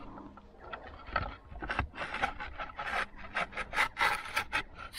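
A replacement roof slate scraping against the surrounding slates as it is pushed up into place: a run of short, rough scrapes that come quicker and louder from about a second and a half in.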